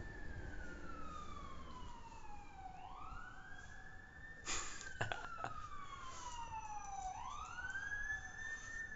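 Emergency-vehicle siren wailing: each cycle sweeps up quickly and falls slowly, repeating about every four seconds. A single sharp knock comes about halfway through.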